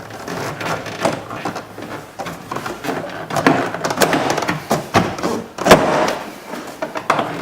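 Car door trim panel being pulled off the door: the plastic panel creaks and scrapes against the door, with a run of sharp clicks and one loud snap about three-quarters through as the push-in retaining clips pop free.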